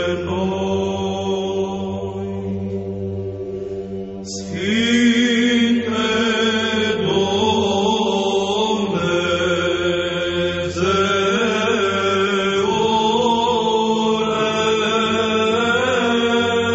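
Orthodox Byzantine chant in Romanian: the chanters draw out a long wordless melisma in held, slowly moving notes over a steady low drone (the ison). A new phrase begins about four and a half seconds in and another near eleven seconds.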